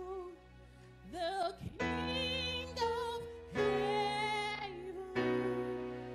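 A woman singing a worship song into a microphone, her voice wavering with vibrato, over held accompaniment chords that change every second or two.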